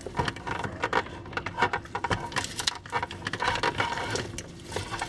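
Basil stems being cut off a potted basil plant: an irregular run of small clicks and leaf rustles.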